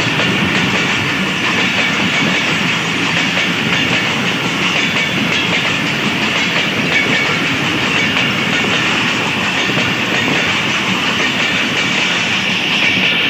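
Passenger coaches of an express train passing at speed close by: the steady, loud sound of the coaches' wheels running over the rails on a stretch of very weak track.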